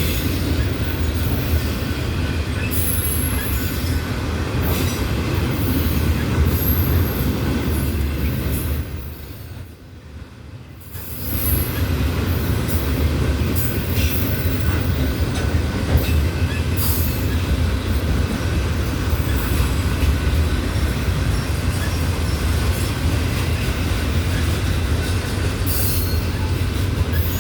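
Loaded autorack freight cars rolling past: a steady low rumble with repeated clicks of wheels over the rail joints and brief high-pitched wheel squeal. The sound drops away for about two seconds around ten seconds in, then returns.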